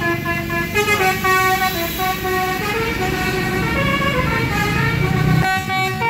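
A tour bus's 'telolet' musical horn playing a tune of quick stepped notes, over the bus's engine running, which falls away sharply near the end.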